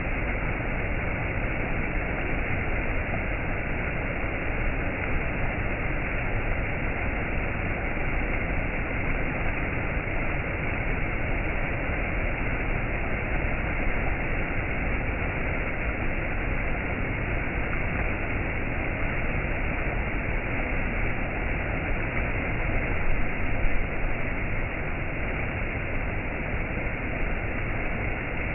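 Waterfall: a steady, unbroken rush of falling water, swelling briefly about three-quarters of the way through.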